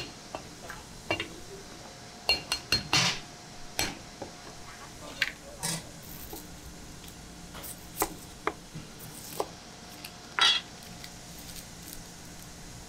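A Chinese cleaver knocking and scraping on a wooden chopping block, among scattered metal clinks of kitchen utensils: short separate sounds at uneven intervals, over a faint steady hum.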